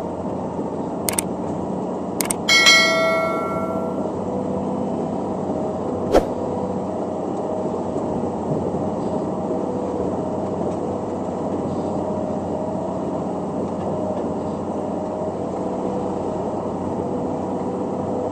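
Heavy road-construction machine's diesel engine running steadily. A few sharp clicks, and one ringing metallic clang about two and a half seconds in that fades out over a second or so.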